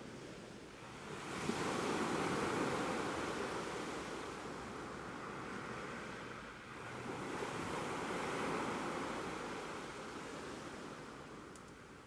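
Ocean surf: two waves break and wash in, the first about a second in and the second about seven seconds in, each swelling and then slowly fading.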